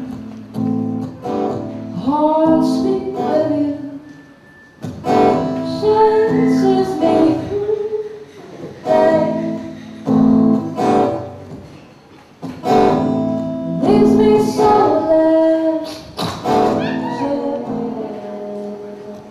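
A woman singing to a strummed acoustic guitar, in phrases separated by brief pauses.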